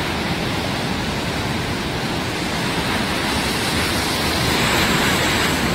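Steady rushing noise of wind and sea surf, even throughout with no distinct events.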